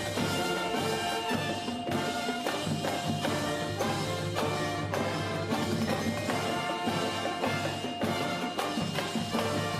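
Police band playing live: sustained band chords over regular percussion strikes.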